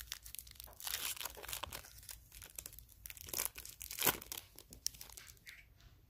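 Plastic wrapper of a Topps 2020 Series 1 baseball card pack crinkling and tearing as it is opened by hand, in a run of short rustles that dies away shortly before the end.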